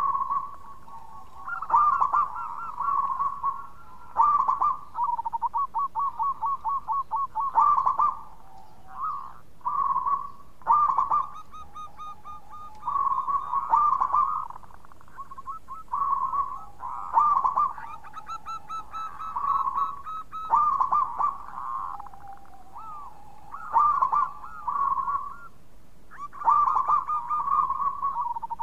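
Local zebra dove (perkutut) cooing in full song: a long run of repeated phrases, each a quick string of staccato coos followed by a held note, with short pauses between them.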